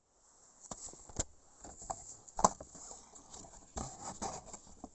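Hands handling a DVD box set's packaging: rubbing and scraping, with scattered clicks and one sharper knock about halfway through.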